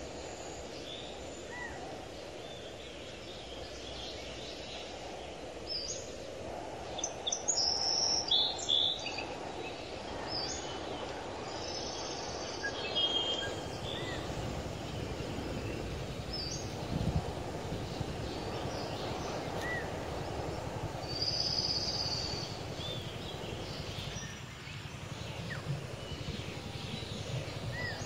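Open-air ambience: a steady low background rush with small birds chirping on and off, in several short quick calls, a cluster of louder chirps about a third of the way in and again about three quarters of the way through.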